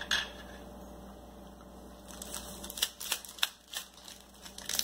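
Light clicks and taps of a metal spoon and a cracker being handled at a stainless steel meal tray: a click as the spoon is set down, then a scattered run of short taps and crackly rustles as a cracker is picked up and handled. A faint steady hum lies underneath.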